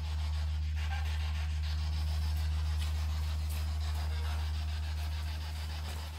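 Spirit box sweeping radio static: a steady low electrical hum under hiss with faint ticks, louder for several seconds and dropping away near the end.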